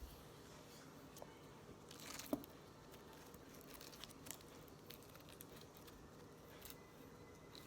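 Slime being handled and squeezed: faint, scattered sticky clicks and crackles, with one sharper pop a little over two seconds in.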